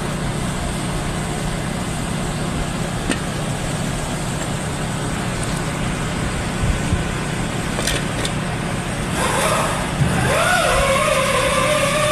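Car engine idling with a steady low hum. About ten seconds in, a high pitched whine joins it, rising briefly and then holding steady.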